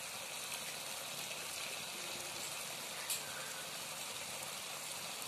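Thick cashew masala gravy bubbling and sizzling in a pan as it heats towards a boil, a steady low hiss, with one light tick about three seconds in.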